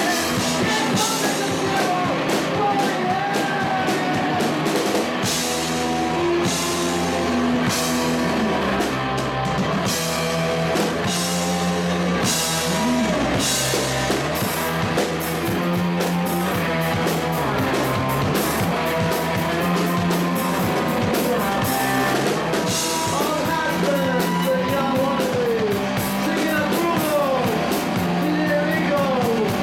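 Live rock band playing: two electric guitars, an electric bass and a drum kit together, with frequent cymbal crashes.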